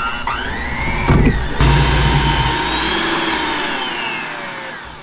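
Electric hand mixer beating cream cheese and ricotta in a glass bowl: the motor whine rises as it starts, with a knock about a second in, then runs steadily with its pitch slowly sagging under the thick mixture until it stops near the end.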